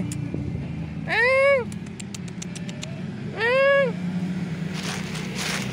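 A cat meowing twice, each meow rising then falling in pitch, over the steady low hum of a motor vehicle engine. A brief run of rapid faint ticks comes between the meows.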